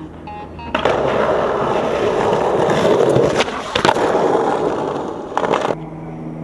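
Skateboard wheels rolling loudly over pavement, starting under a second in and stopping shortly before the end. Two sharp clacks of the board come in the middle, and a short cluster of knocks comes near the end.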